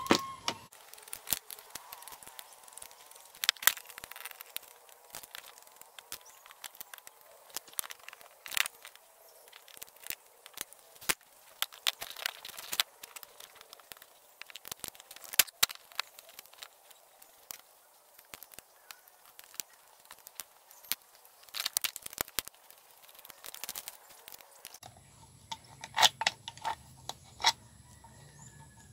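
Small screwdriver working the screws out of a desktop hard drive's metal cover: irregular clicks, light metal taps and scrapes as the drive is turned and handled.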